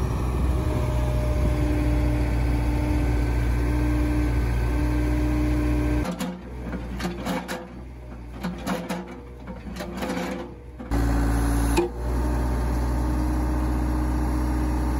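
Ford 655C backhoe's diesel engine running steadily while the bucket presses a fence post into the ground. The engine sound drops away for several seconds in the middle, with uneven lighter sounds, then comes back as loud as before.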